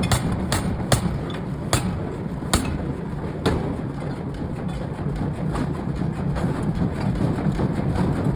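Air hammer strikes on hot steel in a forging shop: about half a dozen sharp, ringing blows at irregular spacing in the first three and a half seconds, then only lighter knocks, over a steady low rumble of shop machinery.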